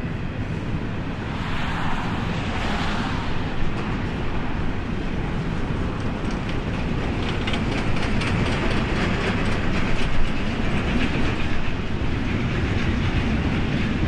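Cars of a BNSF double-stack container train rolling past: a steady rumble of steel wheels on rail, with a rapid clickety-clack of wheels over the rails growing from about halfway through.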